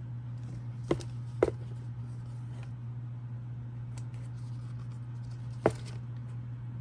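Handling noise from a rubber slide sandal being turned over in the hand above a tissue-paper-lined box: faint rustling and three sharp clicks, two about a second in and one near the end. A steady low hum runs underneath.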